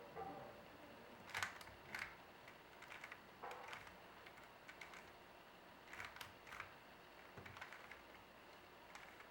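Faint clicking and clacking of a 3x3 speed cube's layers being turned in quick bursts as a PLL algorithm is executed.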